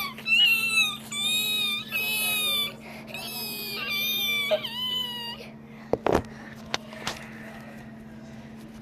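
A run of about six high-pitched meows, each under a second long, followed about six seconds in by a few sharp knocks and clicks of handling.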